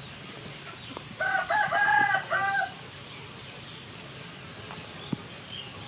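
A rooster crowing once, a single call of about a second and a half made of several short segments, starting about a second in.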